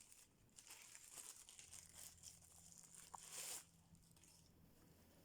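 Faint crinkling and rustling of packaging being handled during an unboxing, a few soft scattered rustles between about one and three and a half seconds in.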